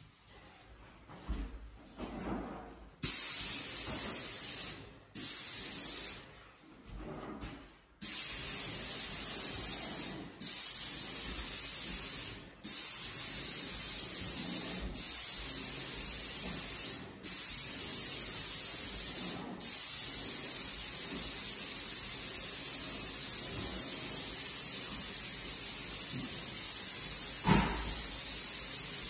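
Graco Magnum X7 airless paint sprayer with a Contractor PC gun spraying: a steady, high hiss of paint atomising at the tip. It starts about three seconds in and is cut by short breaks each time the trigger is released, then runs unbroken for the last ten seconds.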